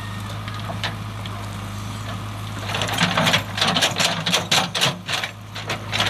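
JCB backhoe loader's diesel engine running steadily while its rear digging bucket works through rocky soil; from about halfway in, a quick run of sharp knocks and scrapes as stones grind and clatter against the steel bucket.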